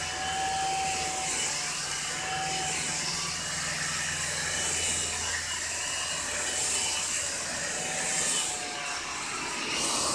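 Hot-air brush blow dryer straightener running on its low setting: a steady motor hum and rush of air that swells a little now and then as it is worked through the hair.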